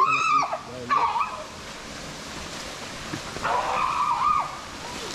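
A young child crying, in high wavering wails: one at the start, a short one about a second in, and a longer one of about a second past the middle, over a steady rush of water.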